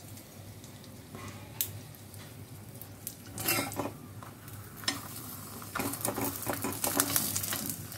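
A milk paratha frying in oil on a hot tawa, with a steady quiet sizzle, and a metal spatula scraping and tapping on the griddle, once about midway and in a quick run of strokes over the last two seconds.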